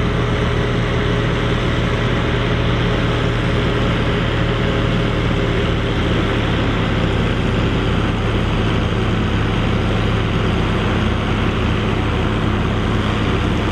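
Mercedes-Benz MB-trac tractor's diesel engine running at a steady, unchanging speed, with no revving.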